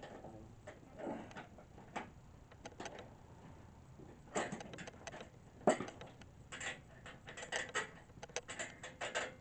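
Scattered metallic clinks and knocks as a bed frame is taken apart and its bolts removed, coming thicker and quicker in the last few seconds.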